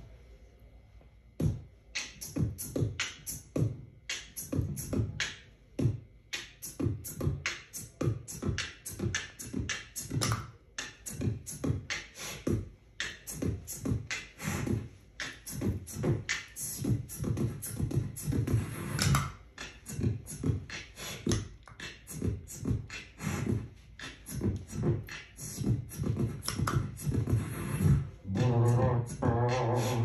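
Beatboxing: a fast, steady rhythm of mouth-made kick, snare and hi-hat sounds. A low pitched vocal line joins near the end.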